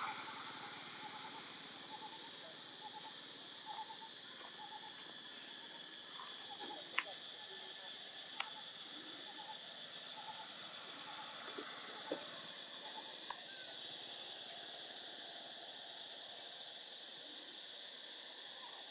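A short hooting note repeated about two times a second, fading out about halfway through, over a steady high insect buzz. A few sharp clicks fall in the middle.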